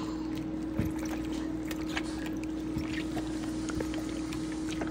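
Soft wet squishes and faint clicks of a gloved hand mixing raw chicken in a thick marinade in a bowl, over a steady hum.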